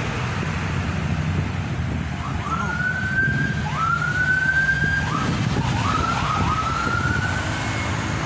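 A vehicle siren giving a string of about six rising whoops, starting about two seconds in and stopping near the end, over the steady rumble of toll-road traffic.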